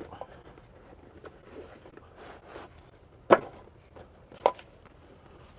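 Gear being handled with faint rustling, and two sharp knocks a little over a second apart, past halfway through.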